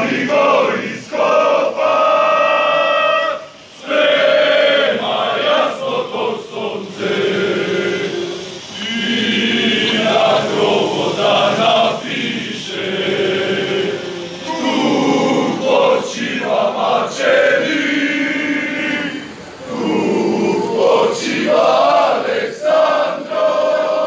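A crowd of men singing together in unison, a loud chanted song sung in long phrases with short pauses between them.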